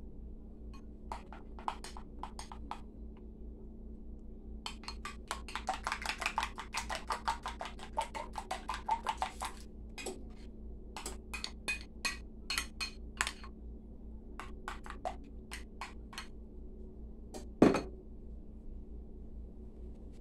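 Metal spoon clinking against a glass bowl while stirring a white liquid: scattered taps at first, then a quick run of clinks for about five seconds, then more spaced taps. Near the end comes one louder knock, as of the bowl being set down on the counter.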